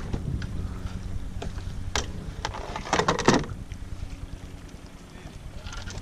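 Wind rumbling on the microphone aboard a canoe, with a few sharp knocks and clicks from gear being handled in the hull, loudest in a short cluster about three seconds in.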